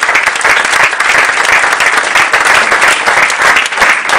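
Audience applauding: a room full of people clapping steadily and loudly.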